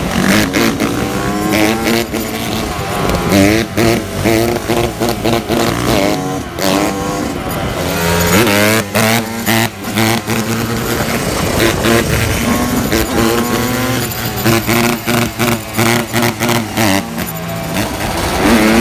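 Honda CRF150 dirt bike's four-stroke single-cylinder engine, with another dirt bike alongside, revving hard under throttle as they are ridden on the back wheel. The engine pitch rises and falls over and over, with frequent throttle cuts and blips.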